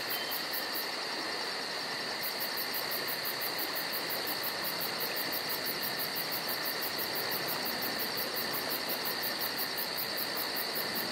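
Night insects, crickets, chirping steadily: an even high pulsing several times a second over a continuous high trill, with a constant hiss beneath.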